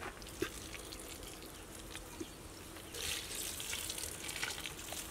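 Milk pouring from a carton in a thin stream onto flour in a large metal pot, a soft trickling hiss that starts about three seconds in. A couple of faint taps come before it.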